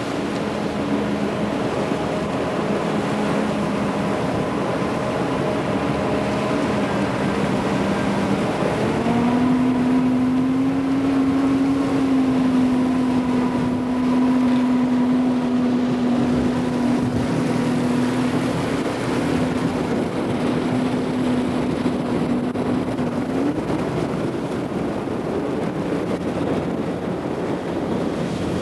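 Motorboat engine running under way, with water rushing along the hull. The engine note rises about a third of the way in, holds steady for a long stretch, then changes again near the end.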